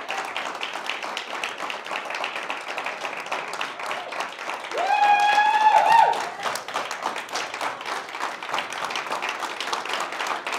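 A room of people applauding, with one voice giving a long held whoop about five seconds in.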